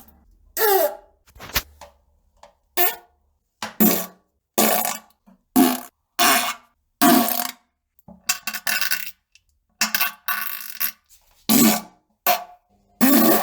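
A rapid series of fart sounds: about a dozen short blasts, roughly one every second, with brief silences between, some falling in pitch.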